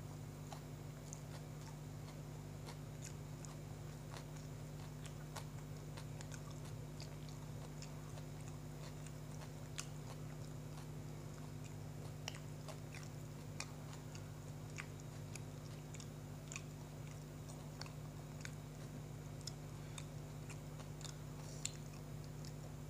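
A person chewing a mouthful of soft bread sandwich, with many small, sharp wet mouth clicks scattered throughout, over a steady low electrical hum.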